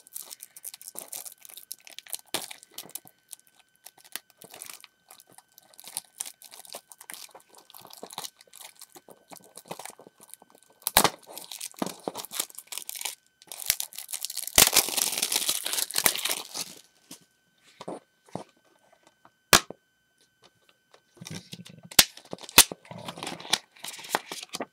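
Crinkly plastic wrapping being picked at, torn and crumpled off a plastic Blu-ray case, a steady crackle with a longer, louder tearing stretch a little past the middle. Sharp clicks from the plastic case are scattered through it, several close together near the end as the case is opened.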